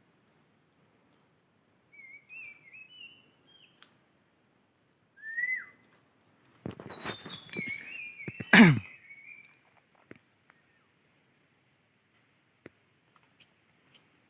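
Wild birds calling in short, stepped chirping notes, with a steady thin high insect drone behind them. About halfway through comes a burst of rustling and knocking, ending in a loud sharp falling sweep.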